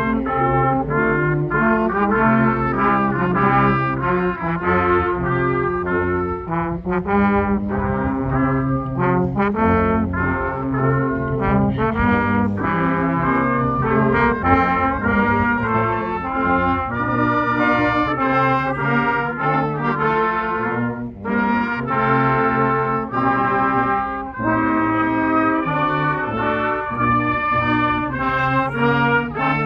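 Brass ensemble playing a slow, chordal arrangement of sustained notes, with a short break in the sound about twenty-one seconds in.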